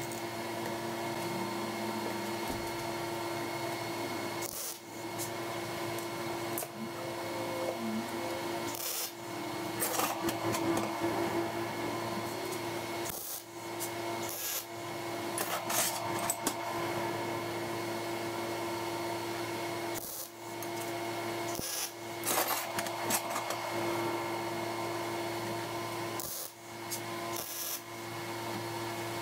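Square steel tubing and steel plate being handled and set in place on a steel welding table, with intermittent scraping and knocking of metal on metal over a steady hum.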